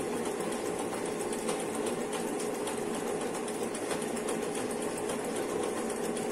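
Circular linking (kettel) machine running steadily as it stitches a knitted waistband onto the garment: an even mechanical whirr with a steady hum and faint rapid ticking.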